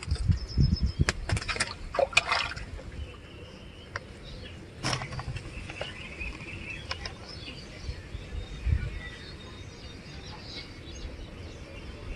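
Sharp clicks and rustles in the first couple of seconds and one more click about five seconds in, from small handling close by, then faint bird chirps over a quiet background.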